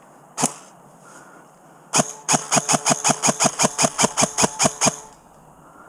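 Airsoft gun firing: one shot, then about a second and a half later a rapid string of some sixteen shots at about five a second, lasting three seconds.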